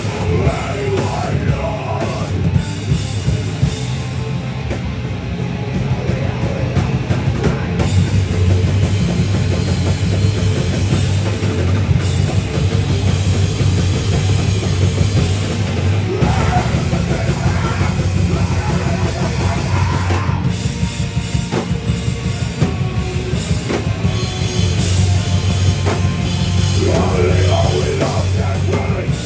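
Heavy metal band playing loud: a drum kit pounding under a thick wall of distorted guitar and bass, with a voice coming in over it a few times.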